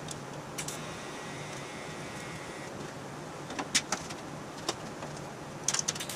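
A pause between TIG welds: scattered sharp clicks and light taps from the torch and welding gear being handled, with a quick flurry of clicks near the end, over a steady low hum.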